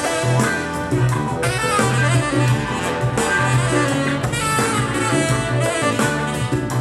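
Instrumental stretch of a pop song with horns, drums and a strong pulsing bass line, played back through a Telefunken RA 100 integrated amplifier.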